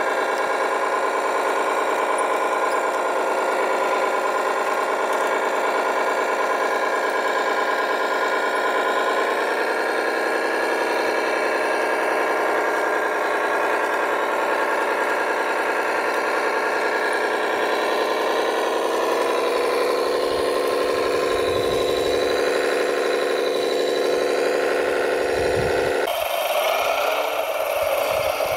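Radio-controlled hydraulic tipper truck running, a steady mechanical hum and whine. Its pitch shifts slightly about nine seconds in and again around nineteen, and the sound changes abruptly a couple of seconds before the end.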